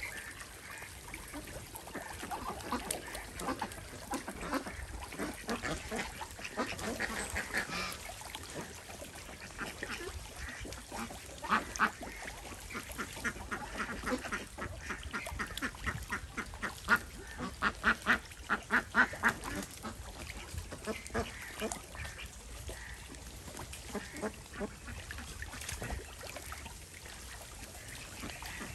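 A flock of domestic ducks quacking, many short calls overlapping, with louder runs of quick quacks about halfway through and again a few seconds later.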